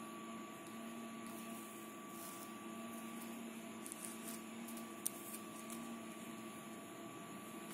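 Steady low electrical or mechanical hum, with several fixed tones, including a high one, over a faint hiss. A single small click about five seconds in.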